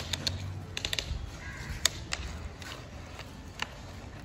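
Irregular sharp clicks and clacks of plastic toy excavators and dump trucks handled in gravelly sand, with grit rattling.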